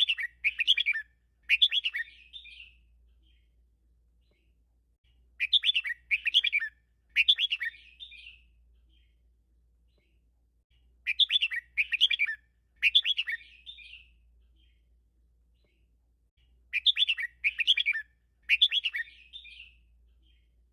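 Red-whiskered bulbul singing a 'teacher' song of the double-3 style, the kind played to train caged bulbuls. The same short phrase of three or four quick, clear notes, about two and a half seconds long, is repeated four times about every five and a half seconds.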